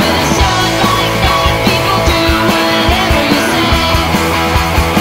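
Rock music with a steady drum beat, laid over the footage as the soundtrack.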